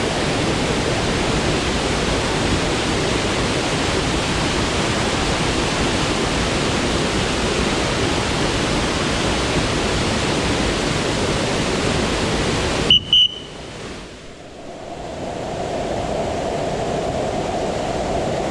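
Steady rushing roar of a waterfall's falling water. About thirteen seconds in there are two sharp clicks with a brief high beep, the roar drops away abruptly, then comes back quieter and narrower.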